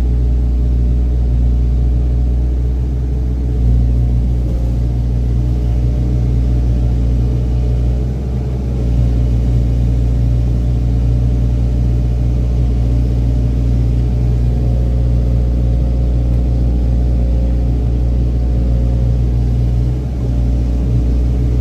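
Excavator's diesel engine running steadily, a deep continuous drone with brief slight dips in loudness about eight seconds in and again near the end.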